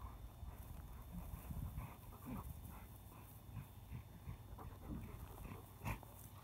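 A yellow Labrador puppy panting in quick, faint breaths, about three a second, while tugging on a rope. A single sharp click comes near the end.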